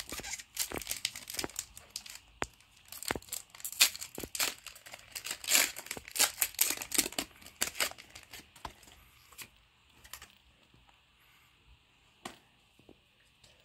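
A Pokémon card booster pack's foil wrapper being torn open and crinkled by hand: a dense run of crackles and rips for about the first eight seconds, then only a few scattered clicks.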